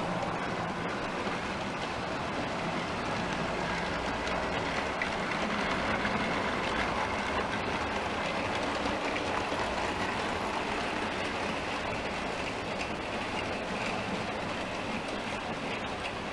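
Model trains running on a layout: a steady rolling rumble of small electric motors and metal wheels on track, two trains passing on neighbouring lines, swelling slightly in the middle.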